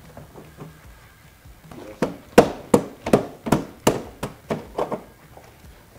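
A hand knocking a camper shell side panel down into its mounting point on the truck bed rail: about ten sharp knocks, roughly three a second, starting about two seconds in. The panel is being tapped into place because it will not slide in on its own.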